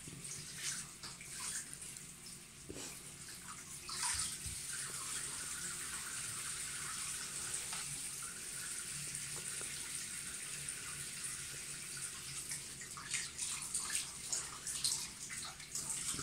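Bath water running and splashing as a dog is washed in the tub; the flow gets fuller and steadier about four seconds in, with more splashing near the end.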